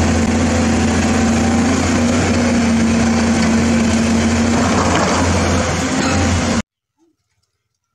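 A large Caterpillar crawler bulldozer's diesel engine running loud and steady under load as its blade shoves boulders, with rock grinding beneath. It cuts off suddenly about six and a half seconds in.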